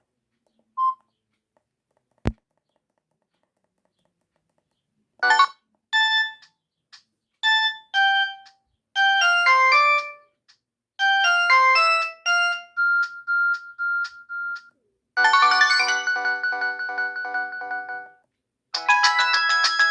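Samsung GT-E2370 mobile phone playing its built-in ringtones: two short beeps and a click, then a synthesized melody of bright separate notes. About fifteen seconds in it switches to a fuller chord-like ringtone, and after a short gap a third, busier ringtone begins near the end.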